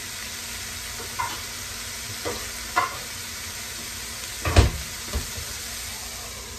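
Brussels sprouts and garlic sizzling steadily in hot oil in a frying pan. A few light knocks and one louder thump a little past the middle come from the sprouts being stirred with a spatula.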